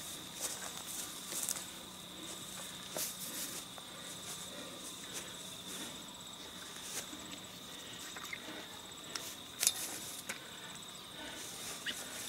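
An insect trilling steadily on one unbroken high note, with a few faint clicks and rustles scattered through.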